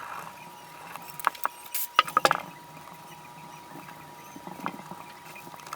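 Small scratches and clicks of a pick scraping carbon from inside a 1911 pistol's magazine well, scattered, with a cluster about two seconds in.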